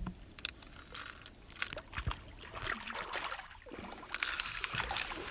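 A hooked catfish splashing and thrashing at the water surface beside the boat as it is reeled in, with scattered sharp clicks and splashes and a louder one near the end.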